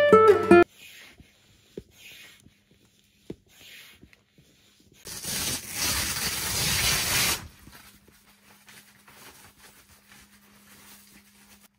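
Tent fabric rustling and rubbing as window cover panels are handled and pulled open inside an inflatable tent, with a louder scraping, tearing stretch of about two seconds in the middle.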